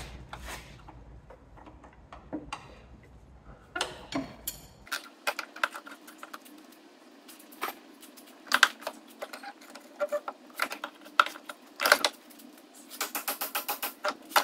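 Scattered sharp metallic clicks, taps and clinks of hand tools working on a car's front suspension, with a fast run of clicks near the end.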